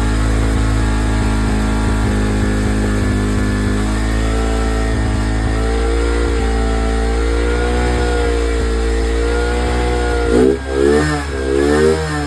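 Motorcycle engine running steadily, then revved in several quick blips near the end.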